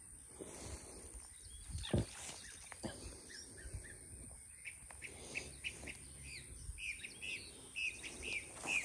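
A bird chirping in short repeated notes, about two a second, becoming steady from about halfway in, with a few rustles and cracks of brush in the first half.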